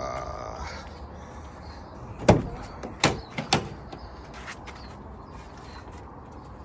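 A door hinge creaks briefly, then a loud knock about two seconds in, followed by three lighter knocks in quick succession, like a door being shut and settling.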